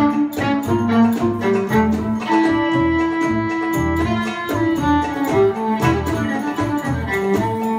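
Live acoustic band of violin, mandolin, bass and dumbek playing a belly-dance tune, with steady drum strokes under the melody. One long held note sounds about two seconds in.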